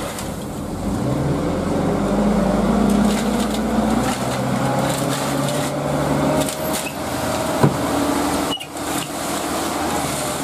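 Dump truck engine revving up about a second in and running hard to drive the hydraulic hoist as the loaded bed tips up, with a faint slowly rising whine. A single sharp knock comes about seven and a half seconds in.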